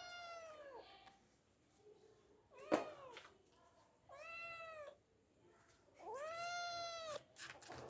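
Domestic cat meowing about four times, each call rising and falling in pitch and under a second long. The loudest is a short, sharp cry about two and a half seconds in; the longest comes near the end.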